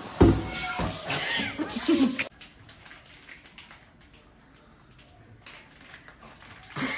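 A low thump, then about two seconds of high, wavering vocal sounds with gliding pitch that cut off suddenly, followed by a quiet stretch with faint clicks.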